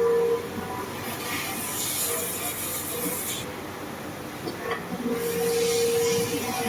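CNC machine cutting metal: a steady whine near the start and again near the end, with stretches of hissing between.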